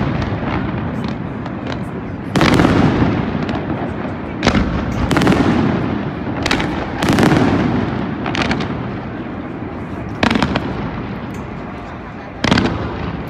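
Aerial fireworks shells bursting: about six loud booms a second or two apart, each trailing off in a rolling echo, with lighter pops and crackles in between.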